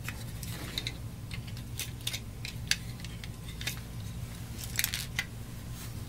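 Scattered light clicks and taps of small broken plastic pieces being worked out of a PlayStation 1's controller-port housing and dropping onto a wooden floor. The clicks come irregularly and grow more frequent in the second half.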